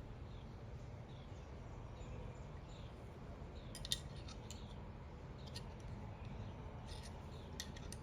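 A few sharp metallic clicks, the loudest about four seconds in, as a screw-in hook is twisted into a tree trunk, over faint chirping of small birds and a steady low outdoor rumble.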